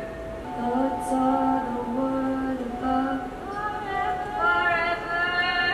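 Installation soundtrack of layered, looped voices holding long sung notes at several pitches at once, with a low note dropping out about three seconds in.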